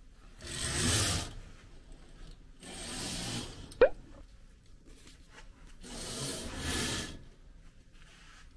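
Sheer hotel curtains being drawn open: fabric and runners sliding along the curtain track in three pulls of about a second each, with a short sharp squeak a little before the middle.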